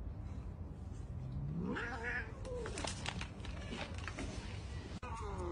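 A cat yowling: a drawn-out call that rises in pitch about a second and a half in, followed by shorter calls mixed with light clicks, and another call starting near the end.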